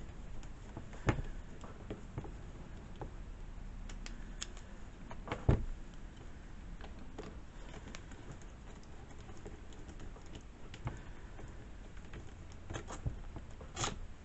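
Irregular small clicks and taps of an Allen wrench and screws being worked on a chainsaw's carburetor mount, with sharper knocks about a second in, about five and a half seconds in, and a few near the end.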